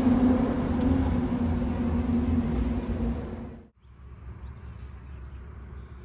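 A lorry passing on the road close by: a steady engine hum over tyre and road rumble. It cuts off abruptly about three and a half seconds in, leaving quieter outdoor background with a faint high chirp.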